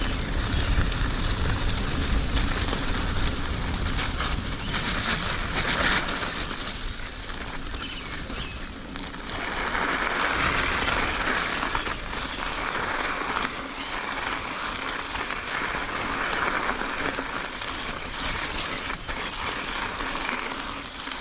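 Full-suspension mountain bike (Calibre Triple B) rolling along a dirt forest trail: tyre noise on the ground that swells in stretches, with wind rumbling on the microphone, strongest in the first few seconds.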